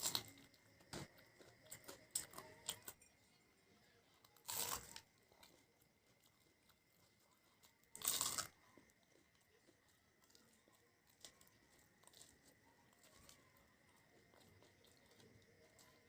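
Close-up eating: crunchy bites and chewing of crispy fried snacks. There is a cluster of sharp crunches in the first few seconds and two longer crunching bites about four and a half and eight seconds in, then quieter chewing.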